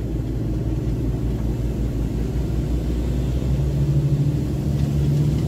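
Semi-truck tractor unit's diesel engine running as the empty rig drives off, its pitch climbing from about three seconds in as it picks up revs.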